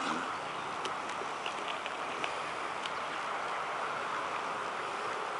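Steady rushing of a shallow, rocky creek flowing over stones, with a few faint scattered ticks.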